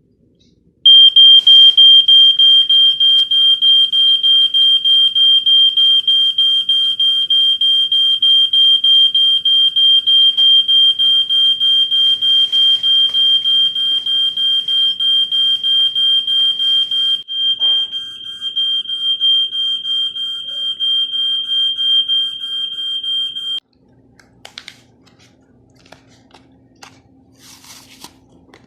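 Smoke and gas detector alarm going off: a loud, high-pitched pulsing beep, about four pulses a second. It cuts off suddenly a few seconds before the end, leaving a faint low hum and a few light clicks.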